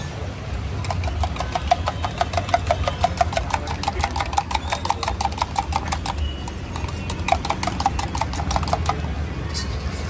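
Rapid, rhythmic clinking of a steel utensil striking steel, several ringing strokes a second, in two runs with a short break about six seconds in. A steady low hum runs underneath.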